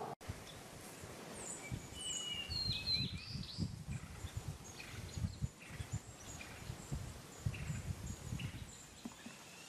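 Woodland ambience: several short bird chirps and calls, most of them in the first few seconds, over an uneven low rumble of background noise.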